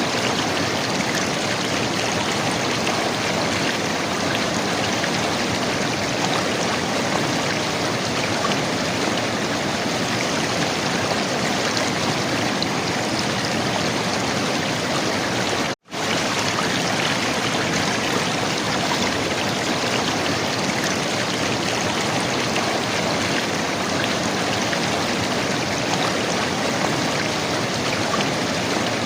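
River water gurgling and rushing steadily, broken once, about halfway through, by a split-second gap of silence.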